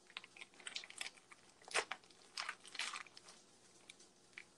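Clear plastic wrapper on a block of cheese crinkling and crackling as it is handled and opened, in a run of irregular sharp crackles, loudest a little before two seconds in and again around two and a half to three seconds.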